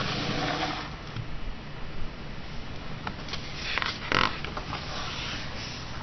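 Quiet room tone with a few soft handling knocks and rustles from a hardback picture book held in the hands, clustered about three to four seconds in.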